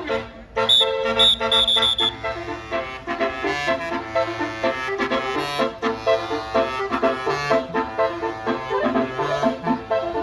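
Basuri telolet bus horn playing a fast melody of many notes. A few short high repeated notes in the first two seconds give way to a quick run of changing notes.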